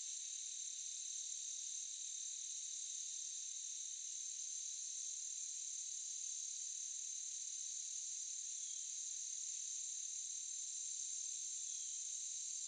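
Crickets chirping in a steady chorus of several high trills. A still higher trill switches on and off about once a second.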